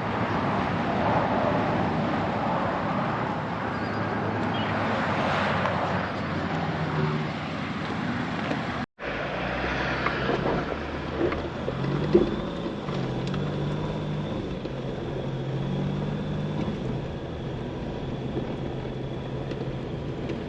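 A vehicle running, with steady wind and road-type noise, in two pieces split by a sudden cut about nine seconds in. In the second part the engine's pitch steps up and down.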